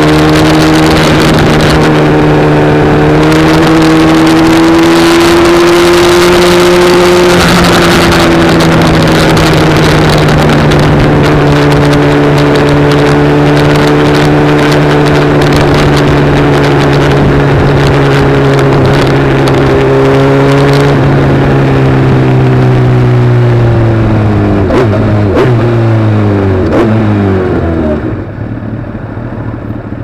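A vehicle engine running steadily under heavy rushing noise. Near the end its pitch falls in several steps as it slows, and then the sound drops much quieter.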